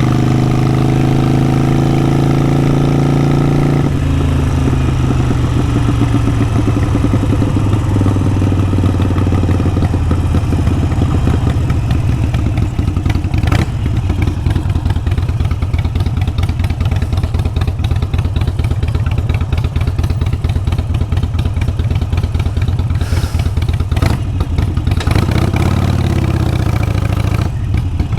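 Harley-Davidson Sportster 883 Iron's air-cooled V-twin running through a Vance & Hines exhaust. It is held at higher revs, then about four seconds in the note drops to a low, choppy, uneven beat. Near the end there is a short rise and fall in pitch.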